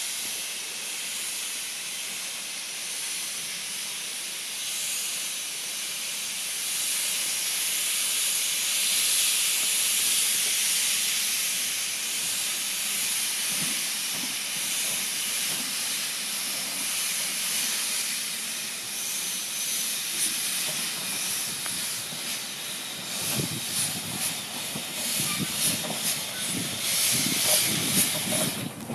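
Steam locomotive No. 2 venting steam with a strong, steady hiss. About three-quarters of the way in, irregular puffs and knocks join the hiss as the engine comes close, wrapped in its own steam.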